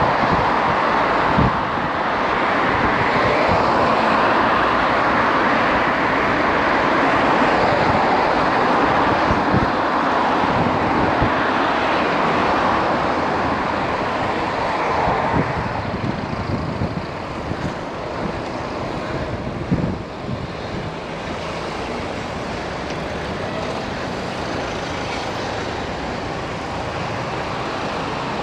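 Road traffic passing close on a city street, heard from a moving bicycle: a steady rushing noise of engines and tyres that eases off about halfway through, with scattered low knocks underneath.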